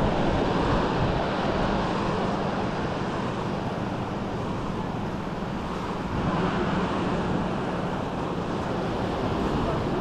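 Small waves breaking and washing up on a sandy beach, a steady surf noise, with wind on the microphone.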